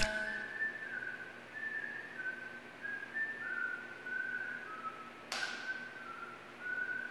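A person whistling a slow tune, one held note after another, quiet. A single sharp knock comes about five seconds in.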